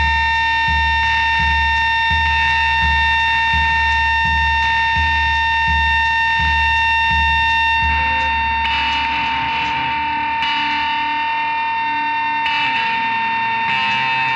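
Live band music: a sustained, distorted guitar drone holding steady tones over a pulsing low beat. The low beat drops out about eight seconds in, leaving the drone.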